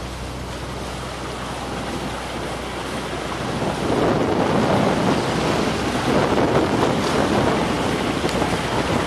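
Wind buffeting the microphone over the rush of water on a yacht under way at sea, the gusts growing stronger from about four seconds in, with a steady low hum underneath.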